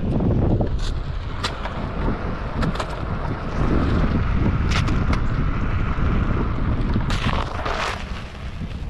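Wind rumbling on the microphone of a pole-mounted camera carried by a rider moving on a Onewheel electric board, with scattered short crackles and clicks and a longer crackling stretch near the end.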